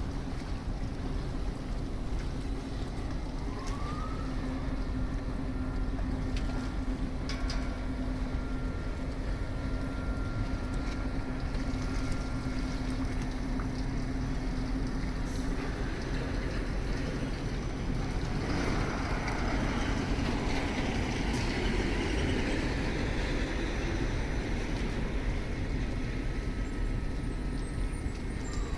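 Heavy vehicles and machinery at a container terminal, running with a steady low rumble and a steady hum. There is a short rising whine about four seconds in, and a louder, fuller noise joins in from about two-thirds of the way through.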